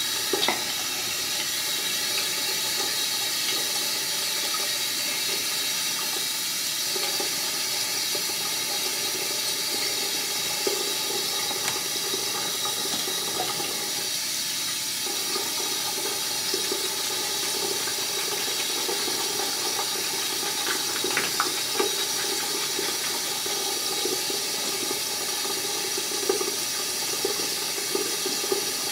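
Bathroom sink tap running steadily, an even rushing hiss of water, with a few small clinks over it.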